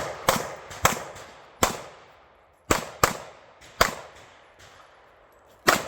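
Handgun shots fired one after another: about eight sharp reports at an uneven pace, with a pause of nearly two seconds before the last one, each trailing off in a short echo.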